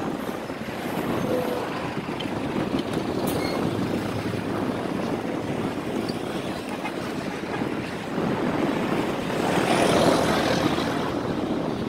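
Steady outdoor rushing noise, swelling loudest about ten seconds in.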